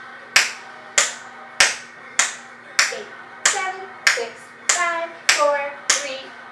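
Tap shoes tapping on a tile floor: ten sharp metallic clicks in a steady, even rhythm, a little over half a second apart.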